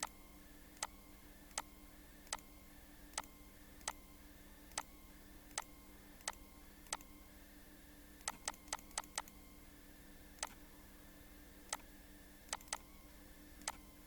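Computer mouse clicking, single clicks roughly once a second with a quick run of about six clicks a little past the middle, over a faint steady hum.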